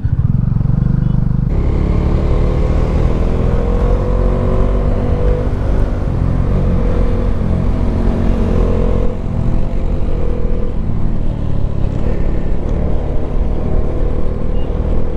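Bajaj Dominar's single-cylinder engine running steadily under way. In the first half its pitch climbs slowly several times as the bike accelerates.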